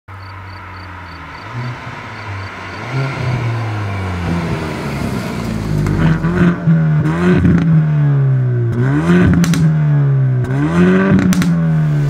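Hyundai i30N Fastback's 2.0-litre turbocharged four-cylinder idling at a standstill, then revved in repeated blips from about five seconds in, the revs rising and falling several times. Sharp crackles come from the exhaust as the revs drop.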